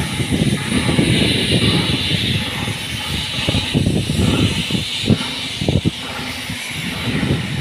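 Irregular low rumble with a steady hiss over it, typical of wind buffeting a phone's microphone outdoors.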